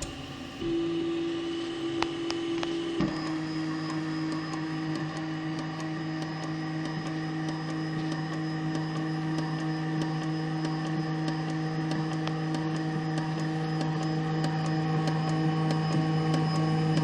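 Zortrax M200 3D printer's Z axis running: a steady stepper-motor whine starts about a second in and takes on a lower tone about three seconds in, with faint scratchy ticking over it, and it grows slowly louder. The scratchy noise comes from the Z axis while the printer is cold and goes away once it is warm.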